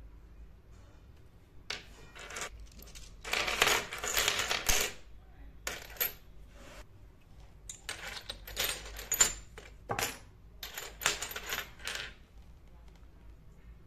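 Small ceramic dishes clinking and rattling together as a hand rummages through a pile of miniature cups, bowls and plates, in clusters of clatter with a few bright high rings, starting about two seconds in and stopping about twelve seconds in.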